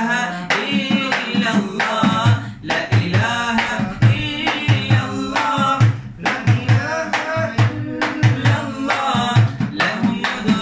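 Male voices singing an Arabic nasheed together, accompanied by a hand-played frame drum keeping a steady beat.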